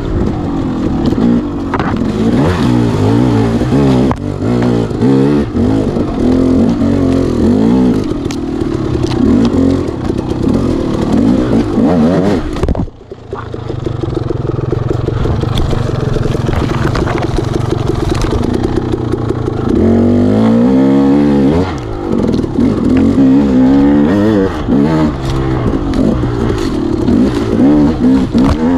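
Off-road motorcycle engine being ridden hard on a trail, its pitch rising and falling constantly with throttle and gear changes, with rattles and knocks mixed in. About 13 seconds in the engine drops off briefly, then holds a steadier pitch for several seconds before revving up and down again.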